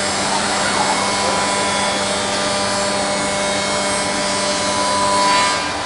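Spindle of a Bacci Master-Win 5-axis CNC working centre running and milling solid-wood window parts: a steady machine noise with a held whine. It swells a little just before the end, then drops.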